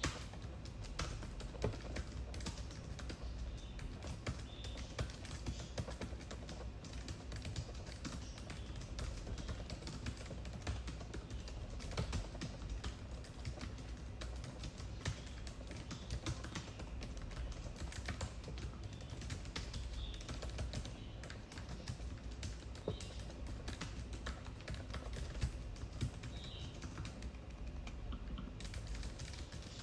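Continuous typing on a MacBook laptop keyboard: a fast, irregular run of light key clicks, over a steady low hum.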